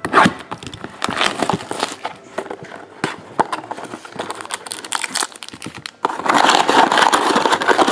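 A knife slitting the plastic shrink wrap on a sealed trading-card box, then cardboard and plastic being handled with scattered rustles and clicks. Dense crinkling of the plastic wrapper starts about six seconds in.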